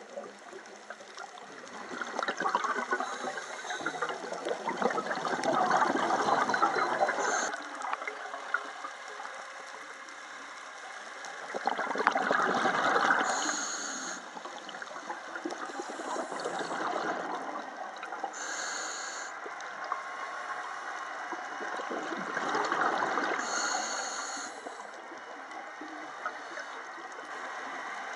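Scuba diver breathing through a regulator: about four long rushes of exhaled bubbles a few seconds apart, with short high hisses of inhalation between them.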